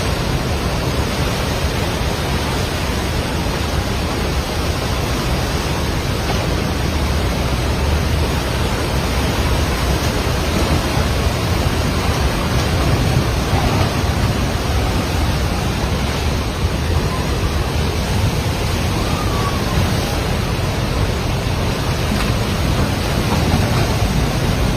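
Rushing floodwater: a steady, loud roar of fast-flowing water with a deep rumble underneath.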